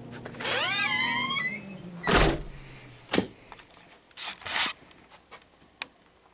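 A brief squeak that rises and wavers in pitch, then a loud thump about two seconds in, followed by a few clicks and short rustles.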